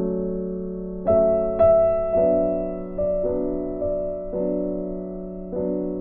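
Background music: slow piano playing chords, each struck and left to fade, with two brighter high notes a little over a second in.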